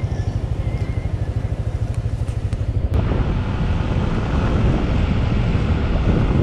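Motorcycle engine idling with an even, rapid putter. About three seconds in it cuts abruptly to the motorcycle running along at speed, louder, with wind rushing over the microphone.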